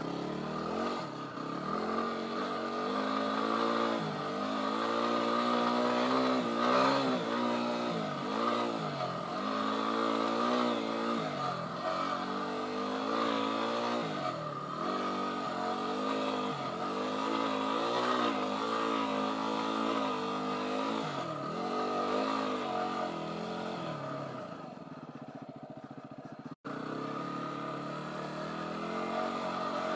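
Yamaha WR250R's single-cylinder four-stroke engine working hard in deep sand, revving up and falling back again and again as the throttle is opened and closed every second or two. It runs a little quieter for a couple of seconds near the end, with a split-second dropout.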